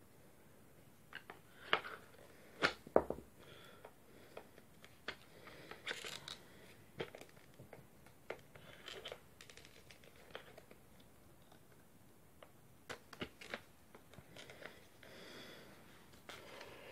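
Parts of a cordless SDS drill being handled and fitted together during reassembly: irregular clicks and knocks of plastic and metal, the loudest about three seconds in, with some rustling in between.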